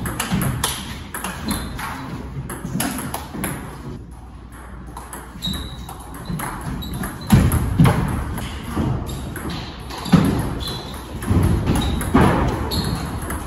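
Table tennis ball clicking off rackets and the table in a long, irregularly paced rally, with a few heavier thuds about 7, 10 and 12 seconds in.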